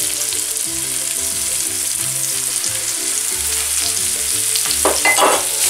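Diced cooked ham sizzling as it fries in melted butter and a little oil in a hot non-stick frying pan, stirred with a wooden spatula.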